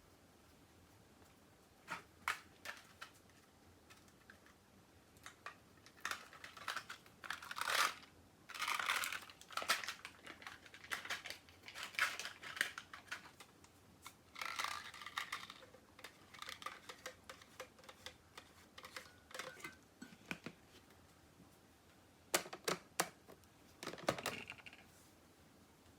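Light, irregular clicks and rustling from small objects being handled at close range, in bursts with short pauses. The sounds are faint and spread through most of the stretch.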